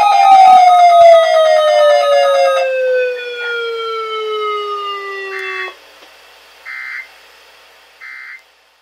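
A siren winding down, its pitch falling smoothly for several seconds before it cuts off abruptly. A rapid pulsing tone sounds over it for the first couple of seconds. Three short beeps follow, about a second and a half apart.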